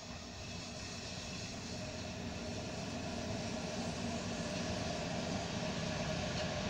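Freight train hauled by an electric locomotive passing at a distance: a steady rumble of the locomotive and wagons on the rails, growing louder as it approaches.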